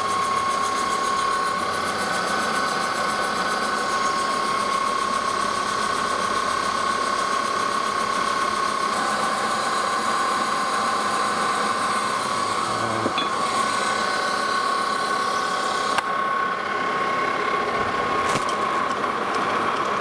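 Metal lathe turning down the outside diameter of a ductile cast iron billet, the cutting tool taking a steady cut with a steady high-pitched whine over the running machine. The sound shifts slightly about nine seconds in, with a single click about sixteen seconds in.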